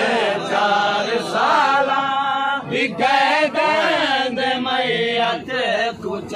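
Men's voices chanting a Muharram lament (noha) together, a slow melodic line with long held, wavering notes.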